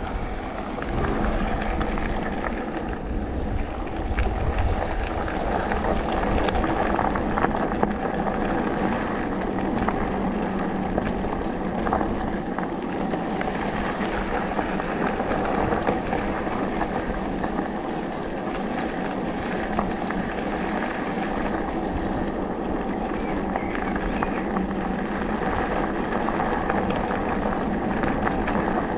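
Haibike electric mountain bike ridden along a gravel forest track: tyres rumbling over the gravel and a steady hum from the drive, with wind buffeting the microphone, heaviest in the first few seconds.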